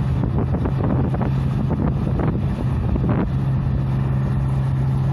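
Tracked rice combine harvester's engine running steadily under load as it cuts and threshes paddy, a constant low hum, with wind buffeting the microphone.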